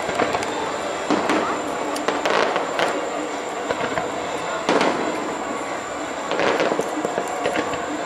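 Fireworks bursting in the EPCOT night show: a string of sudden bangs and crackles, one every second or two, over a steady background din.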